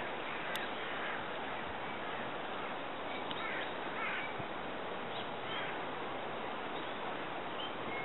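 A few short bird calls, caw-like, over a steady rushing background noise; the calls cluster in the middle and come once more near the end.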